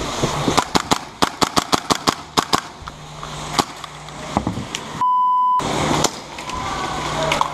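Airsoft guns firing in a quick run of sharp shots, with a few more single shots after. About five seconds in comes a steady half-second electronic beep, a censor bleep.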